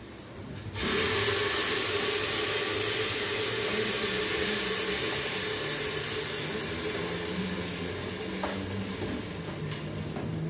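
Loud sizzling hiss as cooked beans are tipped into onion and garlic browning in hot olive oil. It starts suddenly about a second in and slowly dies down, with a couple of light knocks near the end.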